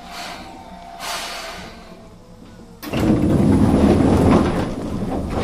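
Commuter electric train stopping at a platform: a short hiss of air about a second in, then the sliding doors opening with a sudden loud rush about three seconds in that lasts a couple of seconds.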